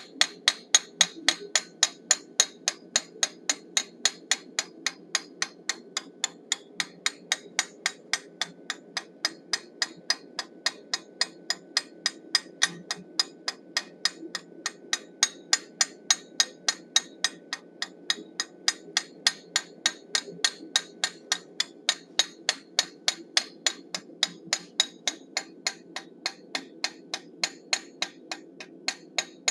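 A blacksmith's texturing hammer with straight and cross peens strikes a forged steel bison head on the anvil in quick, light, even blows, about three a second, texturing the head's fur.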